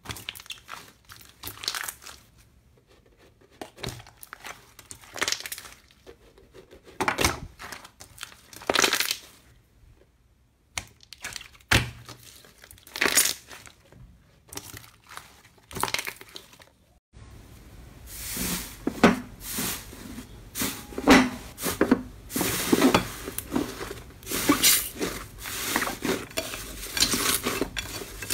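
Hands squishing and pressing slime, making irregular bursts of crackling and popping a second or two apart. About 17 seconds in, the sound turns denser over a steady hiss as a thicker slime is pulled and torn apart over a plate.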